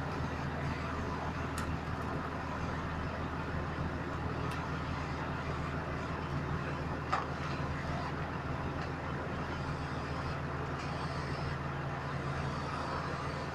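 Road roller's engine running steadily under load as the machine creeps up the loading ramps, with one sharp click about halfway through.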